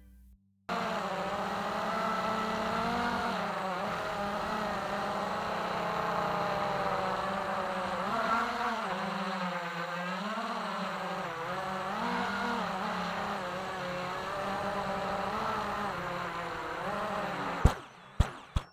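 DLE 111 twin-cylinder two-stroke gasoline engine of a large RC Decathlon running, its pitch rising and falling gently with the throttle. Near the end three sharp knocks are heard, then the sound cuts off.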